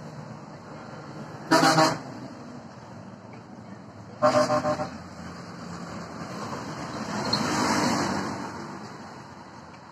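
A vehicle horn on the road sounds twice: one short honk about a second and a half in, then a few quick beeps about four seconds in. A vehicle then passes, its noise swelling and fading in the second half, over a steady hum of traffic.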